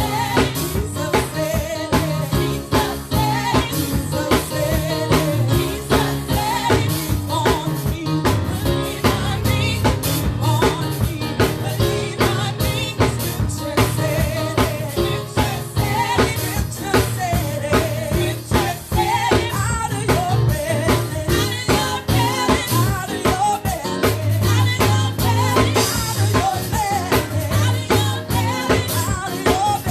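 Live gospel worship music from a church praise team: a drum kit playing a steady beat over a bass line, with voices singing.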